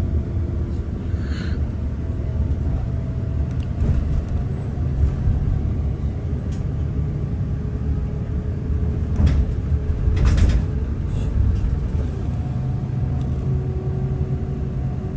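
Bus engine and road rumble heard from inside the moving bus, steady and low, with a few brief rattles or knocks about a second in and again around nine and ten seconds in.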